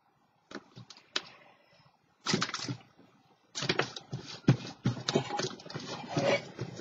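Irregular taps, knocks and paper rustling of hands working paper and a glue stick on a tabletop, a few sharp clicks about half a second in, becoming busier and denser from the middle on.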